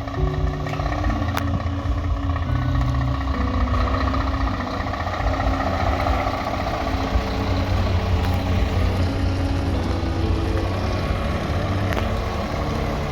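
Heavy trucks' diesel engines running as they pull away, a steady low rumble that grows a little stronger about four to six seconds in.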